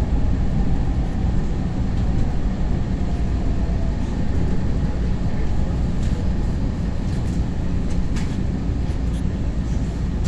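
Steady low rumble of a SEPTA Market-Frankford Line subway-elevated train car running, heard from inside the car, with a few faint clicks in the second half.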